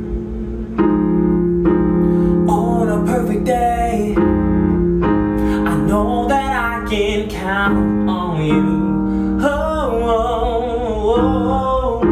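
Piano playing slow R&B ballad chords, with a voice singing a wavering, ornamented melody over them.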